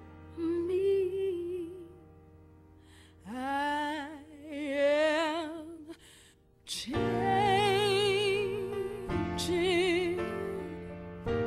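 A woman's voice singing a slow ballad in long held notes with a wide vibrato, in separate phrases with short pauses between, over quiet sustained accompaniment.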